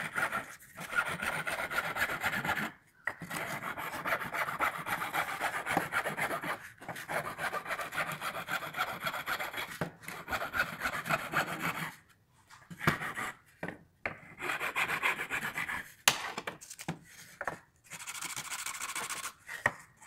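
Steel hand file rasping back and forth on old wood in runs of quick short strokes, broken by brief pauses, with a single sharp tap about sixteen seconds in.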